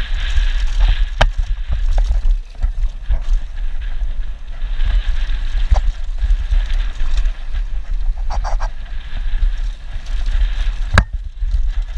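Wind buffeting a helmet-mounted camera's microphone during a fast downhill mountain-bike descent, over tyre noise on dry dirt trail. A few sharp knocks from the bike hitting bumps, the strongest near the end.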